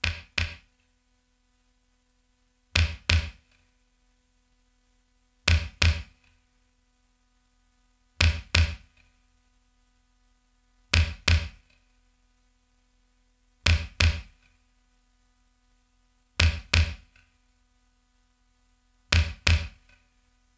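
Slow, amplified heartbeat-like double thumps, a lub-dub pair about every two and three-quarter seconds, over a faint steady electrical hum.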